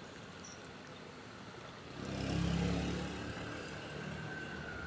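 A motor vehicle's engine running close by, swelling up about two seconds in and then easing to a steadier, lower running sound, over a background hiss.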